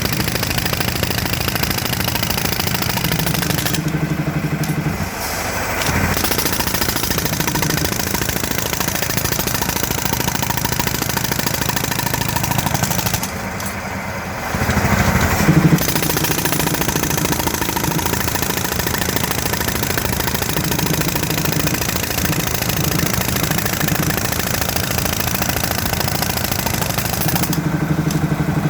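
Powered drilling machine hammering into the ground in rapid blows, with an engine running beneath it. It eases off briefly about five seconds in and again around the middle.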